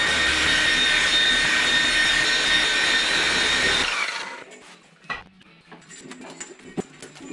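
Electric rotary polisher with a foam pad running steadily while buffing a painted boot lid, then switched off about four seconds in, its whine falling away as it spins down. After that come soft rubbing and a few light knocks as the panel is wiped with a cloth.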